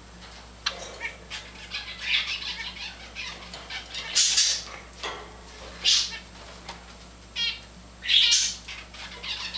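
Java sparrows calling: a series of short calls every second or so, one of them a quick rattling trill about three quarters of the way through.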